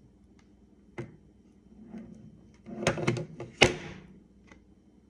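Handling noises from a Daisy blister-pack card and its packaging: a single click about a second in, then a short cluster of sharp knocks and crackles about three seconds in, the loudest a sharp knock near the end of that cluster.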